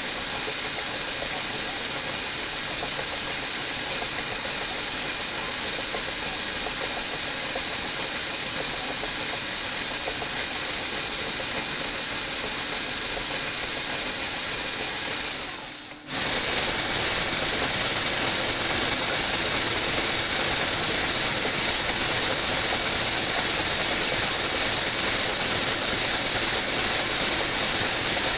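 Small electric toy motors driving plastic gearboxes: a steady whir with a strong high hiss and fine whining tones. It fades out about fifteen seconds in and comes straight back louder.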